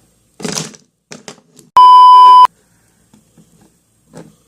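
A single loud, steady electronic beep tone, like a censor bleep, lasting about two-thirds of a second, about two seconds in. A short scuffing noise comes before it.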